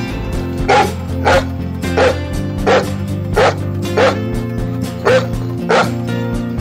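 A German Shepherd-type dog barking, about eight short barks at a fairly even pace with one longer pause partway through, over background music.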